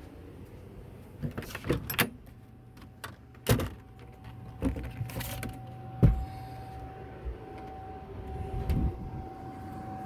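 Handling noise of entering a camper: the entry door being worked and a series of sharp knocks and thuds as someone steps up inside, the loudest about three and a half and six seconds in. Behind them a steady hum sets in about two seconds in, the camper's air conditioner running.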